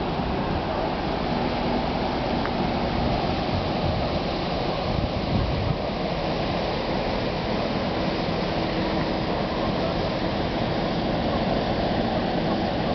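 Waterfall on the Gualaxo do Norte river, its water falling and rushing in a steady, unbroken noise.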